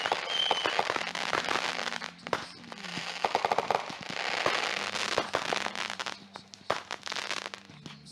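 Consumer aerial mortar shells going off in quick succession: many sharp bangs and crackling bursts, with a short whistle near the start and a fast run of crackles about three and a half seconds in, thinning out near the end.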